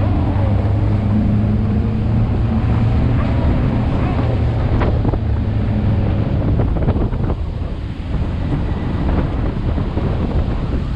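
Pickup truck engine running as it drives over a rough dirt road, heard from the open cargo bed with strong wind on the microphone. A few sharp knocks and rattles from the truck bed come around the middle.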